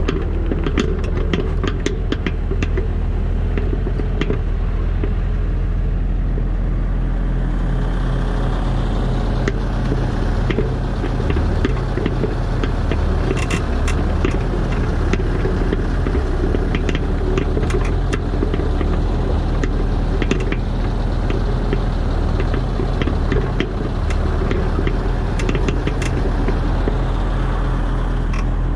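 Diesel engine of an earthmoving machine running steadily while working, with many scattered sharp clicks and rattles.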